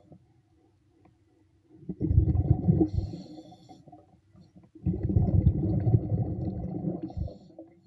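Underwater scuba diver breathing through a regulator: two bubbling exhalations of about two seconds each, separated by quiet pauses, each ending in a brief high hiss.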